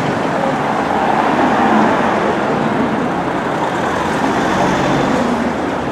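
Steady street traffic noise, with cars driving past close by.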